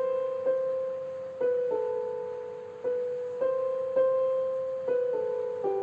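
Background piano music: a slow melody of single notes and two-note chords, each struck and left to ring and fade, with a new note every half second to a second or so.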